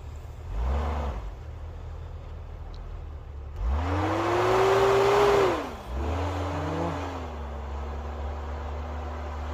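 Off-road 4x4's engine revving as it works through mud. It rises briefly about half a second in, then climbs higher near four seconds in and holds for about two seconds with a loud rush of noise. It drops away, revs up again and holds steady until it falls off near the end.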